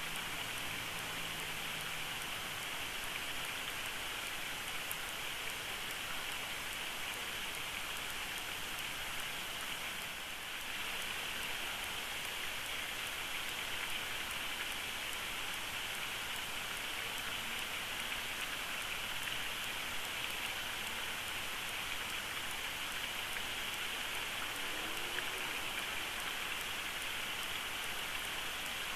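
Steady, even outdoor hiss picked up by the nest camera's microphone, with no distinct calls or knocks; it dips briefly about ten seconds in.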